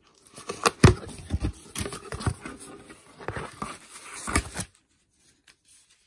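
A cardboard box being torn and pulled open by hand: cardboard and tape tearing and scraping, with sharp knocks and some crinkling. It stops suddenly a little past three-quarters of the way through.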